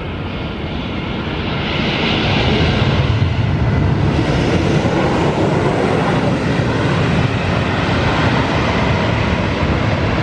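Jet airliner engines running loud and steady, a dense rushing roar that swells over the first couple of seconds and then holds.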